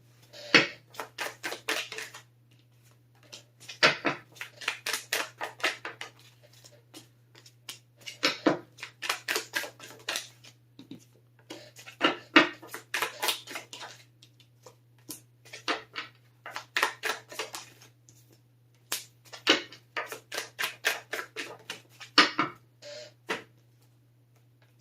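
A deck of tarot cards being shuffled by hand in repeated bursts of one to two seconds, each a quick run of crisp card clicks, with short pauses between bursts.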